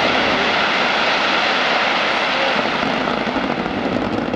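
A fireworks display with many fireworks going off at once, their bangs and crackle merging into one loud, steady rush of noise.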